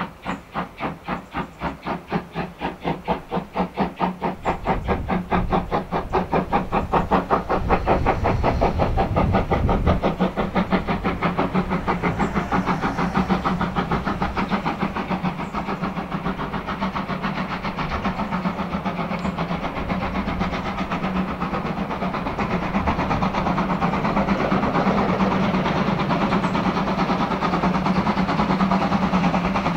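Steam locomotive working hard under full steam, its chimney exhaust beating in a regular rhythm. The beats grow much louder over the first several seconds as it approaches, with a low rumble joining in, and stay loud to the end.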